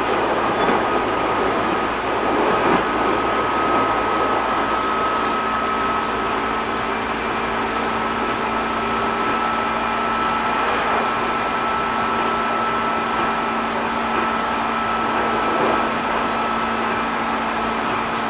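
Onboard running noise of a JR 205 series 600-subseries electric multiple unit: a steady rumble with a constant high whine and a lower hum.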